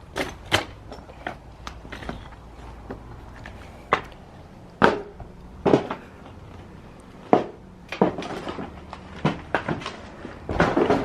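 Footsteps crunching and knocking on a debris-strewn hard floor inside a decaying building: about ten uneven steps and knocks, with a louder clatter of several near the end.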